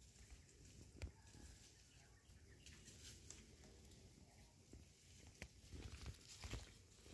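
Near silence, with faint scattered rustles and ticks, a little more of them near the end.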